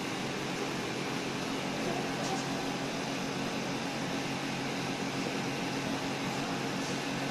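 A steady mechanical hum over an even hiss, with no change in pitch or level.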